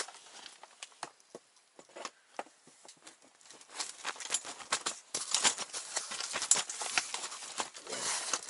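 Scattered knocks and rustling as a person moves about and shifts a metal-framed folding chair. The clatter and rustle get busier about halfway through.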